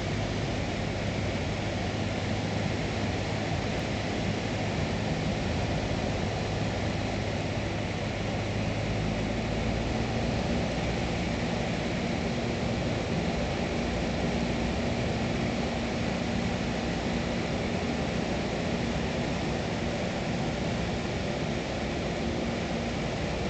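Cessna 172's piston engine and propeller droning steadily, heard from inside the cabin during the landing approach, with the engine's hum shifting in pitch about nine seconds in.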